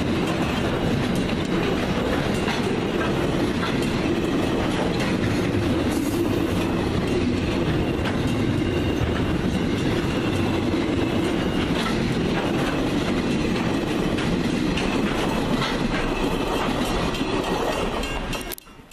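Container train's wagons rolling past close by: steady wheel-on-rail rumble with scattered clicks from the wheels over rail joints. The noise drops away just before the end.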